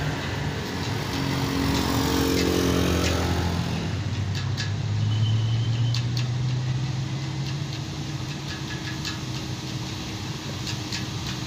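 A motorcycle engine goes past during the first few seconds. Then, from about four seconds in, a bus's diesel engine climbs the steep grade toward the camera as a steady low drone. A few faint clicks are heard along with it.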